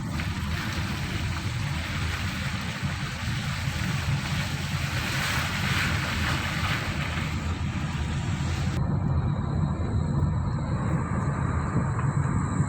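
Car driving along a road: a steady low rumble of engine and tyres heard from inside the cabin, with a loud hiss over it that cuts off suddenly about nine seconds in.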